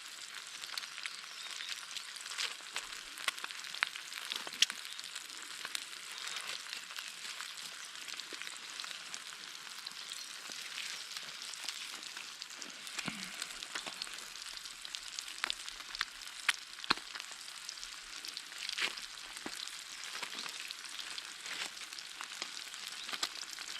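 Ham, eggs, tomatoes and cheese frying in a pan on a portable stove: a steady sizzle with scattered sharp pops and crackles.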